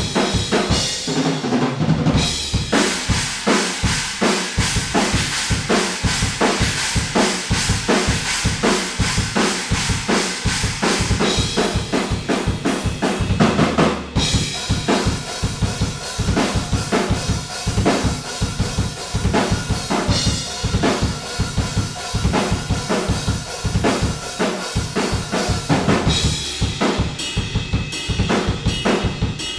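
Drum kit played hard and continuously, with rapid bass drum strokes, snare hits and cymbal wash. It is heard raw and unprocessed through a single Oktava MK-012 omni microphone set outside the live room.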